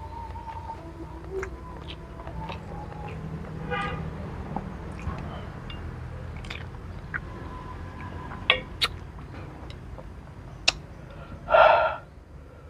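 Chopsticks clicking against a ceramic plate a few times while noodles are picked up, over a low steady background rumble with faint distant tones. A short loud burst sounds near the end.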